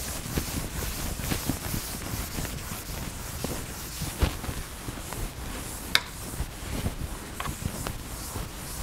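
A chalkboard eraser rubbing across a blackboard in repeated wiping strokes, with a couple of sharp knocks about four and six seconds in.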